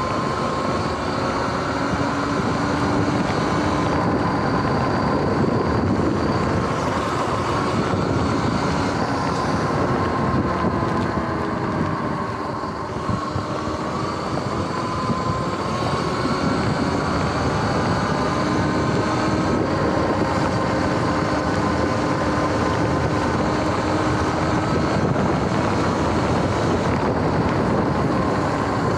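Electric bike's motor and drivetrain whining over a steady hiss of tyres on wet road while riding. The whine falls in pitch as the bike slows around the middle and rises again as it speeds back up.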